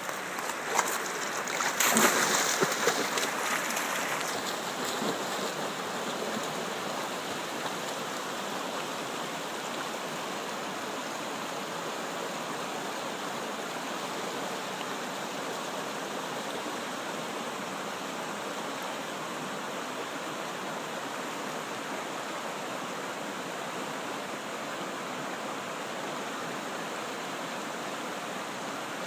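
Shallow, rocky trout stream running over stones: a steady rushing babble of water. In the first few seconds a few short, louder noises stand out, the loudest about two seconds in.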